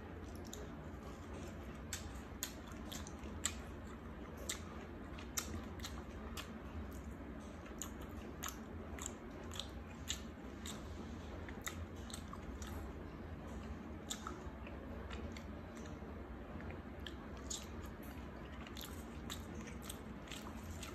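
A person eating close to the microphone, biting and chewing grilled egg and fresh leafy herbs. Many small, sharp clicks and crunches come at irregular intervals over a steady low hum.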